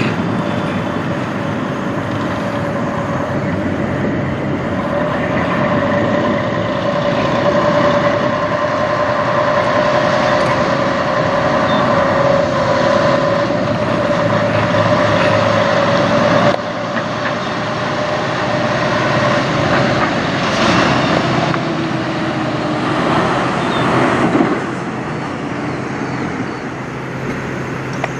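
A Freightliner Cascadia semi tractor's diesel engine running at low speed as it turns and pulls closer, with a steady whine over the engine. About sixteen seconds in the sound cuts abruptly to road traffic, with a tractor-trailer passing and two swells of passing vehicle noise near the end.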